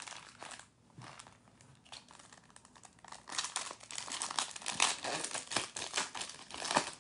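A foil trading-card pack wrapper being torn open and crinkled by hand. The crackling grows denser and louder about three seconds in.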